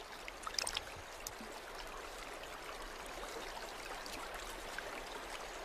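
A creek trickling and running steadily, with a few faint clicks early on.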